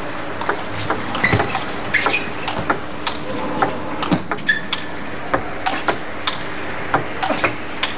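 Table tennis rally: the celluloid ball clicking sharply off the rackets and the table in quick alternation, about one to three clicks a second, over a steady hall background.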